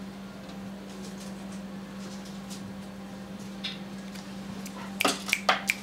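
A steady low hum, then near the end a quick run of sharp clicks from fingers snapping.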